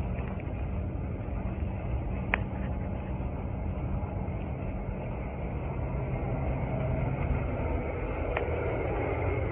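Steady low rumble and air rush inside an Airbus A330-300 cabin, with a sharp click about two seconds in and a fainter one near the end.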